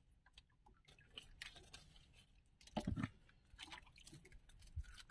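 Faint, irregular clicks and rustles of hands handling fishing tackle close to the microphone, with one louder short sound about three seconds in.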